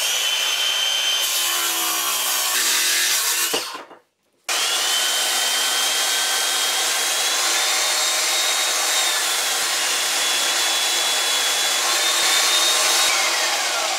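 A power tool running against a wood block for a few seconds, then, after an abrupt break, a belt sander held upside down, running steadily while a hardwood block is pressed against its belt to sand chamfers onto it. Near the end the sander's motor is switched off and winds down with a falling whine.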